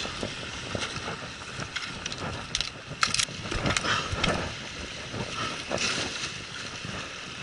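Surf washing against the rocks and wind on the microphone, with a scatter of sharp knocks and scrapes of gear and footing on rock, the loudest a few seconds in.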